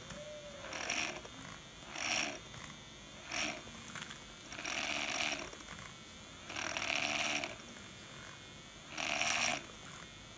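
Rechargeable handheld milk-frother whisk whipping thick dalgona coffee foam in a small glass: a noisy churning that swells in about six irregular bursts, each half a second to a second long, as the coffee is beaten till creamy.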